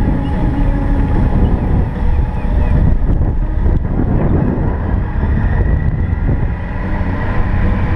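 A vehicle's engine running with wind noise buffeting the microphone as it travels along a road and through a turn. The rumble is steady throughout.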